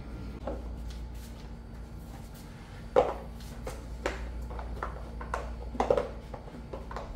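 Floor mop being worked over a ceramic tile floor: faint scuffing with a few soft knocks, over a low steady hum.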